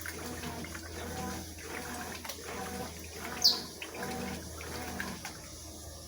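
Consul 12 kg top-loading washing machine agitating a blanket in rinse water: water sloshing and the motor hum pulsing as the agitator swings back and forth, about one stroke every three-quarters of a second. A short high chirp stands out about halfway through.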